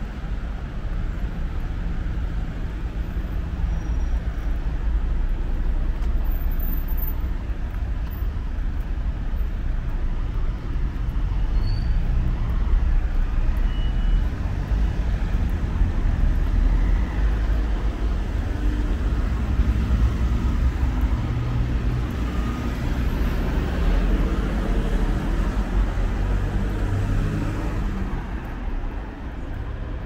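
Road traffic on a city street: a continuous rumble of car engines and tyres that swells and fades as vehicles pass.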